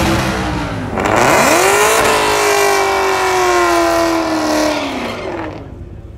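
Twin-turbocharged Ford F-150 Coyote V8 revving hard through a burnout with its rear tyres spinning. The engine note drops, surges again about a second in and climbs, then slowly falls and fades as the truck pulls away down the strip.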